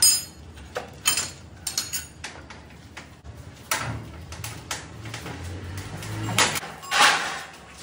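Sharp metal clinks and knocks of a spanner and steel lathe fittings: several in the first two seconds, then a low hum through the middle and two louder scraping knocks near the end as the heavy steel spindle is handled in its slings.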